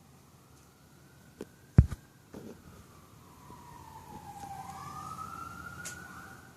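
Distant siren wailing, its pitch sliding slowly down and then back up. A sharp thump about two seconds in is the loudest sound.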